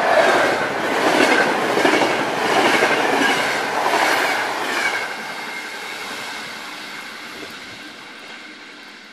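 Night train (Treno Notte) passing through at speed: its wheels clack over the rail joints in a regular rhythm under a steady whine. The sound fades from about halfway through as the last coaches go by and the train draws away.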